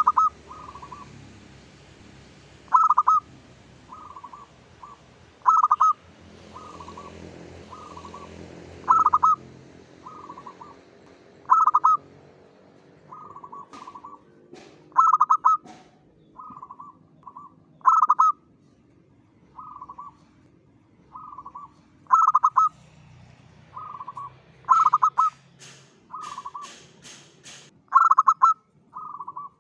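Zebra dove (perkutut) cooing in its rolling, repeated song phrases, about one every three seconds, each starting with a loud note and trailing off in softer coos. A few sharp clicks sound in the middle and a quick run of them near the end.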